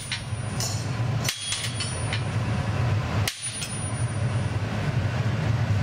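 A chisel knocking small pieces off a rod of solid opaque white colour glass: a few sharp, separate taps over a steady low hum.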